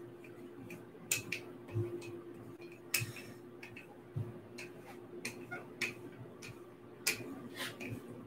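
Wooden rolling pin working pie dough on a floured board, giving irregular light clicks and knocks roughly once a second, over a faint steady hum.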